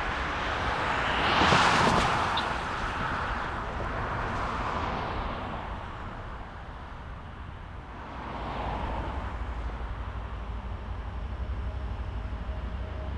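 A vehicle passing close by, loudest about a second and a half in, then a fainter one around eight seconds, over a low steady rumble.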